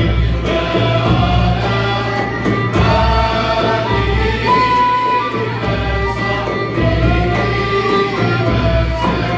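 A male choir singing in unison with a small Turkish ensemble of oud, kanun, ney, violin and frame drum. The frame drum keeps a slow, steady low beat under the held vocal lines.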